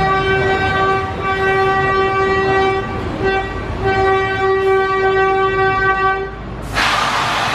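A horn sounding one steady note in several long blasts with short breaks, then a sudden loud rush of hissing noise takes over about seven seconds in.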